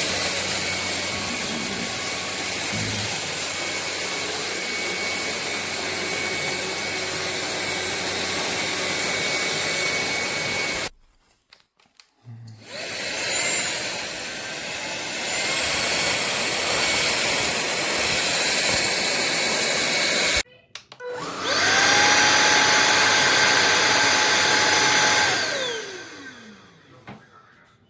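Sulean X8 cordless stick vacuum running, its motor giving a steady whine over a rush of airflow. It cuts out abruptly twice, about 11 s and 20 s in. The last run spins up, holds, and then winds down with a falling whine as it is switched off.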